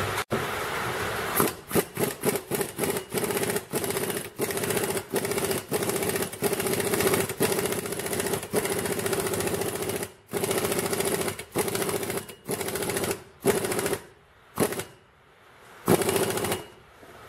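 A power tool spins the screw of a C-clamp style press in many short trigger bursts with brief pauses, pressing a U-joint bearing cap into the axle yoke. It runs as a rapid buzzing chatter, the bursts spacing out toward the end.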